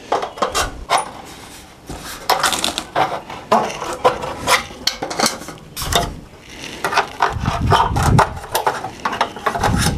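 Aviation tin snips cutting a notch into the end of a thin aluminum side cap: a string of irregular, sharp metallic snips as the sheet is cut.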